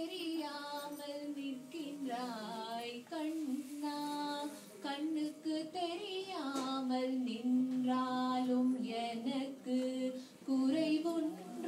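A woman and a young girl singing into microphones: a slow melody of long held notes with wavering, sliding ornaments.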